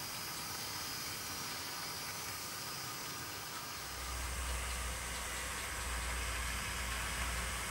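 00 gauge model trains running on a layout: a steady faint hiss, with a low rumble coming in about four seconds in.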